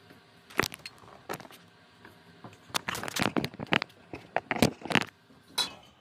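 Steel crosscut saw blade being shifted about and lifted off a wooden workbench: a run of irregular sharp knocks, taps and scrapes, busiest in the middle.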